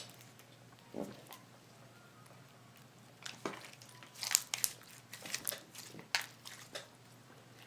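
Freshly activated homemade slime being kneaded and stretched by hand, still being worked to break up its glue-and-activator clumps. It makes scattered sticky squishes and small crackling pops, more of them in the second half.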